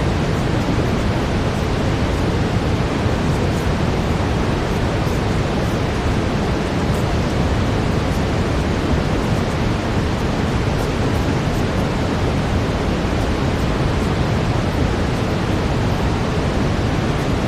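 Steady brown noise: an even, unchanging rushing hiss weighted toward the low end.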